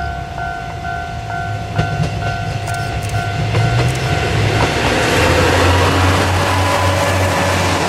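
Kanto Railway KiHa 2300 series diesel railcars pass close by under power: their diesel engines run loud with a steady low drone, working hard enough to put out black exhaust. In the first half a level-crossing bell dings about twice a second with a few wheel clacks over rail joints, then the engine noise swamps it.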